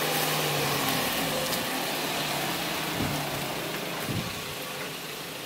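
Small pickup truck driving slowly past with its engine running, against a steady hiss of road and outdoor noise. Two low thumps come about three and four seconds in.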